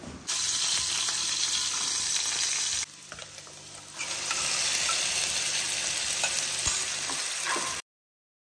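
Food frying and sizzling in a pan, a dense steady hiss in two stretches with a quieter dip about three seconds in. It cuts off suddenly near the end.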